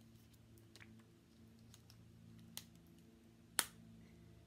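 Faint taps and clicks from an eyeshadow palette being handled, with one sharp click about three and a half seconds in, over a low steady hum.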